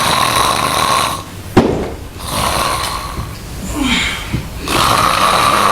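A person snoring: several long, drawn-out snores separated by short pauses, with a single sharp click about one and a half seconds in.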